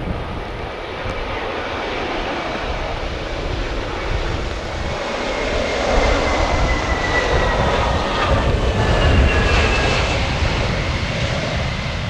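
Airbus A320 airliner landing, its jet engines passing close: the noise swells as it touches down and goes by, with whining tones falling in pitch, then eases off a little as it rolls out down the runway.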